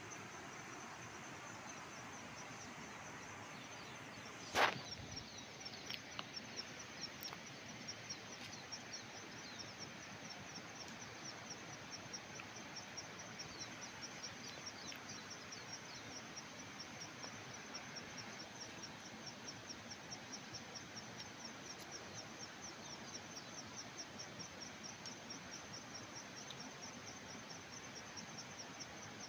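Insect chirping in a rapid, even pulse of short high chirps, several a second, over outdoor background hiss. A single sharp knock about four and a half seconds in.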